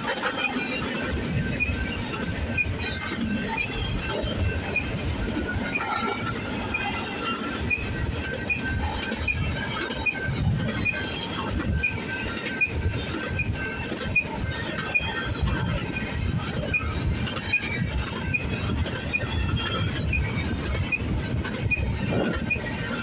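Long freight train of intermodal cars rolling past: a steady rumble of steel wheels on rail, with clicking and many short, high-pitched wheel squeals throughout.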